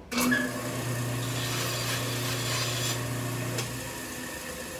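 Band saw cutting through a wooden dowel: the blade rasps steadily through the wood over a low motor hum, starting suddenly and dying down about four seconds in.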